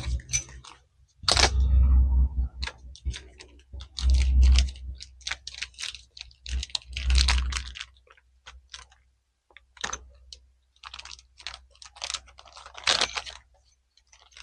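Hand ratchet clicking in quick runs as the handlebar riser bolts are run down, with metal tool and hardware clicks. Three spells of low rumble come in the first half.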